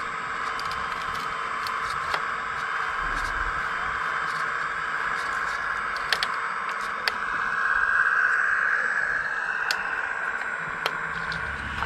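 Electric hydraulic pump and motors of a radio-controlled scale model construction machine whining steadily, swelling louder for a couple of seconds past the middle, with scattered sharp clicks and scrapes.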